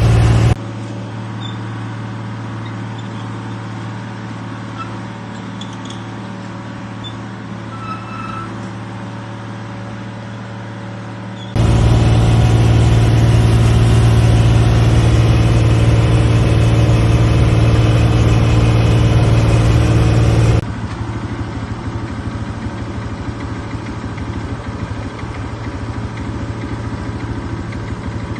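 A vehicle engine running steadily with a deep, even hum. The loudness jumps abruptly about half a second in, again about 12 seconds in, and drops about 21 seconds in, like separate recordings joined end to end.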